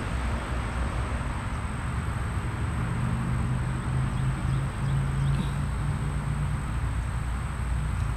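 Steady outdoor background noise: an even hiss with a low hum underneath.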